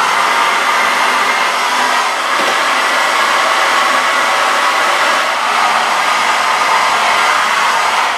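Hair dryer blowing steadily, used as a heat gun to warm a pot-metal motorcycle fuel tap before its parts are pressed together.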